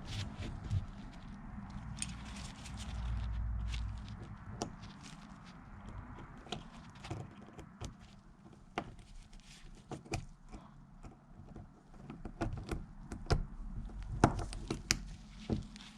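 Scattered small metal clicks and taps as a GM 5.3 hydraulic lifter is put back together by hand, with its retaining clip being worked back into place. A low rumble comes in briefly about three seconds in.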